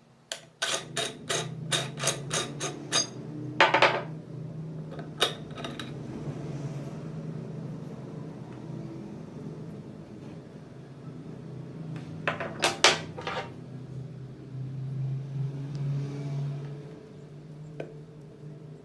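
Metal meat grinder parts clicking and knocking, a quick run of about four clicks a second for a couple of seconds, then a short scrape and a few more knocks later on, over a steady low hum.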